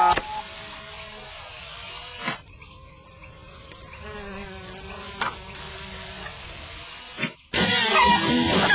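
Rainforest insects buzzing steadily, with a faint low drone under them and a short click a little past halfway. Near the end, guitar music cuts in loudly.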